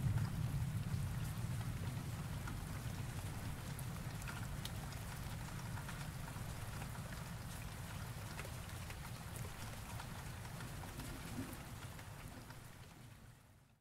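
Steady rain with scattered drop ticks over a low thunder rumble that dies away early on, the whole sound slowly fading out near the end.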